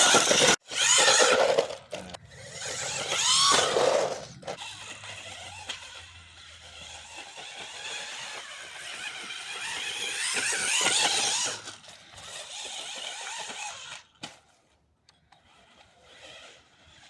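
Electric motor and drivetrain of a DeeRC 9005E 1:14 scale RC buggy whining as the throttle is blipped, the pitch rising and falling in a few bursts, loudest near the start and again after about ten seconds, then dying away near the end.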